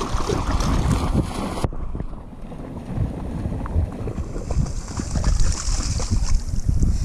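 Wind buffeting the microphone in a low rumble over shallow seawater lapping. About four and a half seconds in, a dog's paws splash through the shallow water for a couple of seconds.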